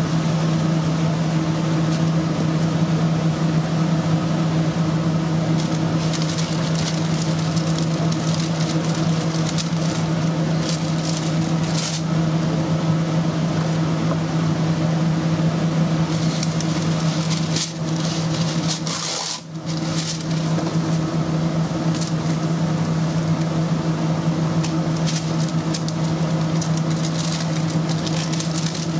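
A steady machine hum of kitchen equipment, with crackling rustles of paper sheets handled in spurts as blocks of raw tuna are wrapped.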